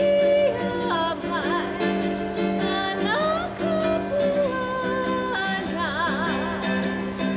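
A woman singing over a strummed traditional tenor ukulele, holding long notes, some with a wavering vibrato, over a steady strum.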